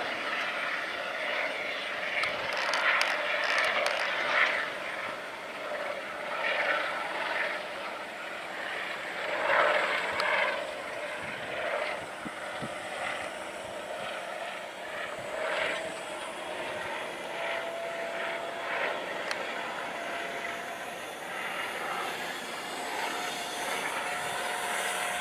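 Airbus EC120B Colibri helicopter in flight: its Turbomeca Arrius 2F turbine and rotors make a rushing sound that swells and fades, and a steady whine comes in about two-thirds of the way through.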